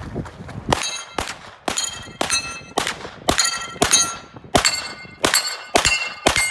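Rapid 9mm gunfire with bullets striking steel target plates, which ring after each hit: a quick run of sharp cracks and clangs, about two a second.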